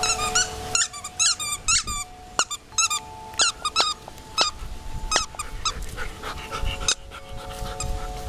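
Borzoi at play, with a run of short high squeaks coming in irregular clusters, about fifteen in all.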